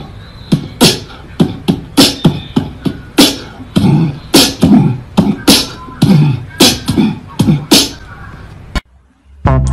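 A quick, uneven series of sharp percussive hits, roughly two a second, stopping abruptly near the end.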